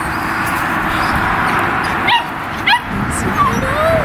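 A litter of red standard poodle puppies yipping and whining: two short, sharp yips that fall in pitch about two seconds in, then thin whines near the end, over a steady background hiss.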